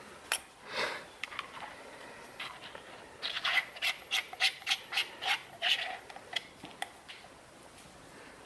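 Metal handle sections of a survival shovel multi-tool being handled and screwed together: scraping and rubbing, with a run of quick, sharp clicks at about three a second midway.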